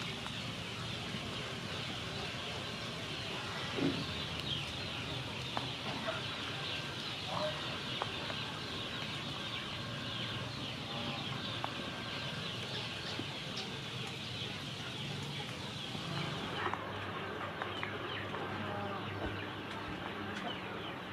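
Outdoor ambience: a steady high hiss with scattered short, faint bird calls, among them hens clucking. The highest part of the hiss drops away about three quarters of the way through.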